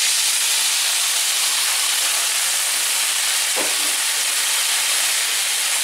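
Water poured into a hot frying pan of sautéed carrots and collard greens, hissing and sizzling loudly as it boils off into steam. The hiss stays steady, with one faint click about three and a half seconds in.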